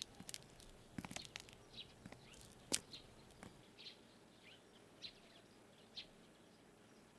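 Faint outdoor ambience with scattered short bird chirps and a few soft clicks, the sharpest a little under three seconds in.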